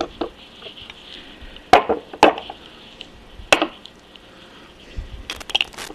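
Knocks and clunks of a wrench on a painted-shut bolt of an Atlas 10F lathe apron, the cast apron shifting on a plywood board as the bolt is forced. Three sharp knocks come between about two and three and a half seconds in, then a brief rattle of clicks near the end.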